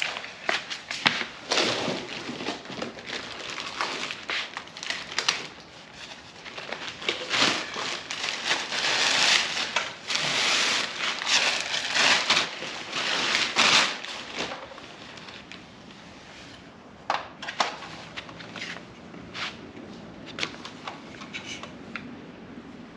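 Packaging being handled: irregular crinkling and rustling with scattered clicks and knocks, busiest about a third of the way in and sparser towards the end, from a roof-rack crossbar kit being unpacked.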